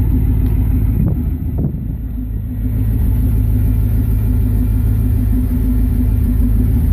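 1996 Camaro Z28's 5.7-litre V8 idling steadily, a low, even engine hum.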